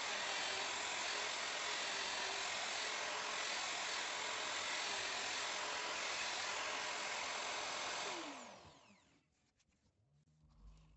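Electric wood router running steadily, then switched off about eight seconds in, its pitch falling as the motor spins down. A few faint clicks follow.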